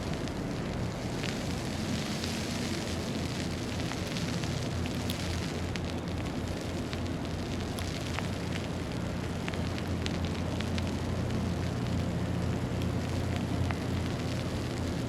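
Steady outdoor city ambience in a snowstorm: a low rumble under a fine, crackling hiss, with scattered faint ticks.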